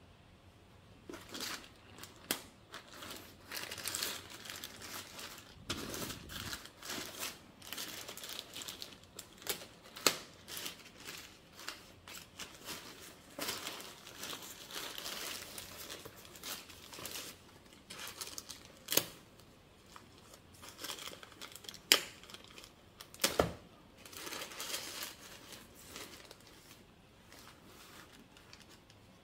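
Plastic poly mailer bag being slit with a folding knife, then torn open and crinkled by hand, with several sharp clicks along the way. It quietens over the last few seconds.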